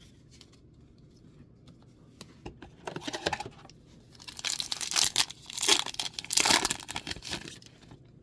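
Plastic wrapper of a Mystery Booster 2 pack being torn open and crinkled, in short crackling bursts, a brief one about three seconds in and a longer, louder run from about four to seven and a half seconds in.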